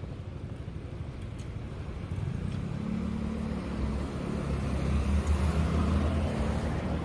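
A motor vehicle's engine running with a low, steady hum, growing louder from about two seconds in.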